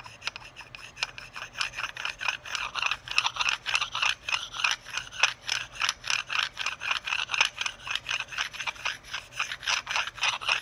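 A sharpening stone rubbed dry in quick back-and-forth strokes over a burr on a motorcycle shift drum, a rasping scrape that gets louder about two seconds in. The harsher scrape marks the burr, a raised high spot on the drum.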